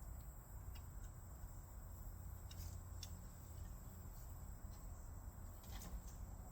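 Quiet outdoor background: a steady low rumble with a few faint, scattered clicks.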